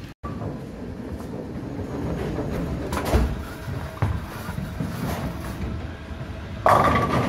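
Bowling ball thuds onto the wooden lane about four seconds in and rolls down it with a low rumble, then crashes into the pins near the end.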